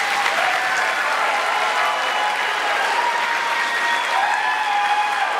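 Audience applauding steadily, dense clapping with a few voices calling out over it.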